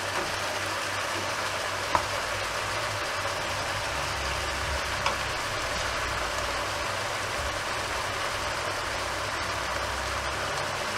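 Chopped vegetables frying in a pan with a steady sizzle, with a couple of faint knocks as pieces of raw veal are laid in on top. A low hum comes in about four seconds in and fades near the end.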